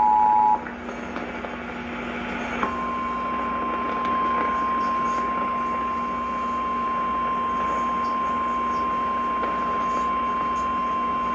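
The end of an Emergency Alert System two-tone attention signal, which cuts off about half a second in, then a couple of seconds of radio hiss. After that comes a steady single-pitch 1050 Hz weather-radio warning alarm tone for about nine seconds, the signal that a warning message (here a severe thunderstorm warning) follows.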